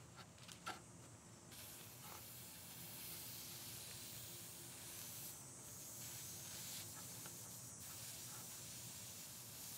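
Faint steady hiss of steam as a hot soldering iron tip is pressed into a wet paper towel on bare wood, steaming out a dent. The hiss sets in about a second and a half in, after a couple of small clicks.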